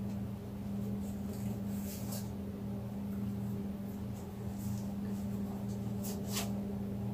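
A steady low hum, with a few faint brushing rustles, the clearest about six seconds in.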